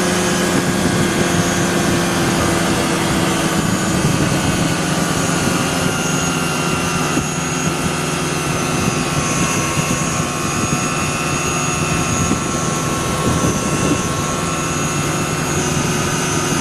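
ASAP Beaver SS ultralight's engine and propeller droning steadily in flight over a constant hiss, the pitch easing slightly lower over the span.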